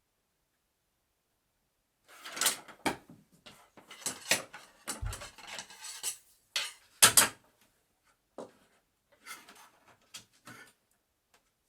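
Wooden bed parts being handled and fitted together: a busy run of wood knocks, scrapes and clatters, loudest about seven seconds in, then a few sparser knocks.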